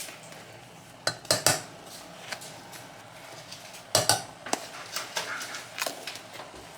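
A spoon clinking and tapping against a pot and containers as sugar and spices are measured into it: sharp knocks in two clusters, about a second in and about four seconds in, with a few lighter taps between.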